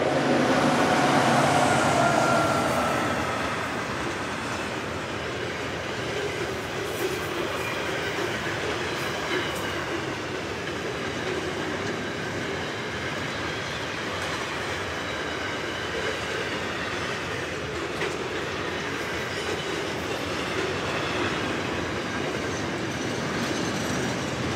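Pair of SCT Logistics diesel locomotives passing close by, loudest in the first two to three seconds, followed by the long intermodal train's container wagons rolling past steadily with wheel clicks and a faint wheel squeal.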